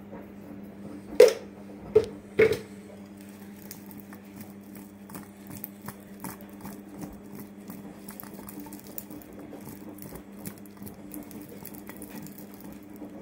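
Boiled, peeled taro pieces tumbling and knocking softly inside a ceramic bowl as it is shaken to coat them with salt, a quick patter of small knocks. Three sharper knocks come in the first few seconds, and a steady low hum runs underneath.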